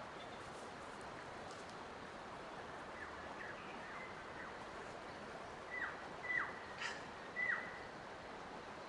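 Birds calling over a steady hiss of outdoor ambience: a few faint calls a few seconds in, then four louder short calls near the end, each a brief note that drops sharply in pitch.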